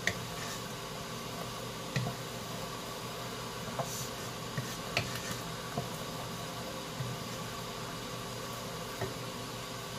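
Tomato and garlic sauce sizzling and simmering in a pot, stirred with a wooden spoon that knocks against the pot a few times.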